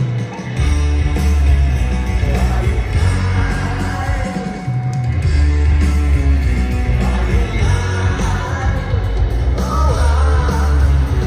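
Live rock band playing through a stadium sound system: a heavy, riff-driven bass and guitar part with singing over it. The bass drops out briefly near the start and again a little under halfway, then comes back in.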